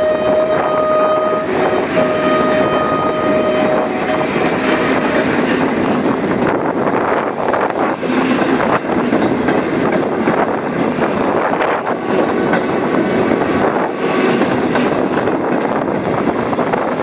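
Diesel locomotive horn sounding two held blasts of one steady pitch, the second ending about three and a half seconds in. Then a departing train's passenger coaches roll past, wheels clattering rhythmically over the rail joints.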